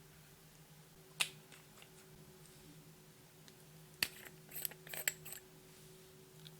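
Small hard clicks from handling slime-making materials: one sharp click, then a short run of crackling clicks about four seconds in.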